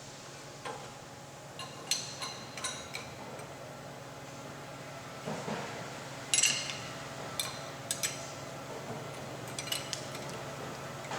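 Metal-on-metal clinks and taps of wrenches and fittings as high-pressure tubing is refitted to a waterjet pump intensifier. There are a dozen or so sharp, short, ringing clinks, irregularly spaced, over a faint steady hum.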